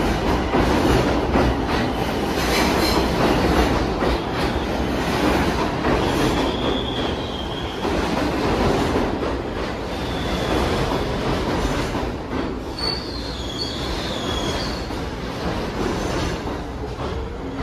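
NYC subway train of R62 cars running past a station platform: a steady rumble and clatter of steel wheels on the rails. Short high-pitched wheel squeals come about six seconds in and again around thirteen to fifteen seconds in.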